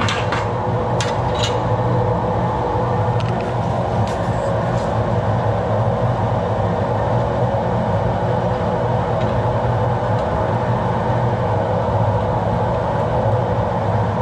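A steady low mechanical hum runs throughout. Several light metal clicks come in the first five seconds as washers and a steel part are handled in a welding jig.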